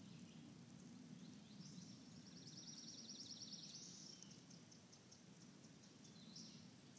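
Near-quiet woods with a faint low steady rumble; about one and a half seconds in, a small songbird sings a fast high trill lasting some two and a half seconds.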